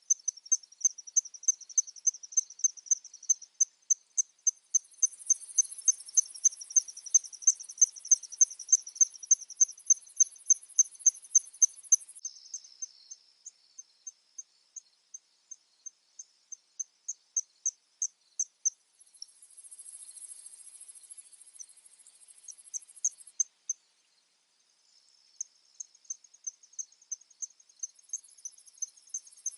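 Crickets chirping in a steady rhythm of about three high-pitched chirps a second, with a higher, continuous insect trill joining in for several seconds at a time.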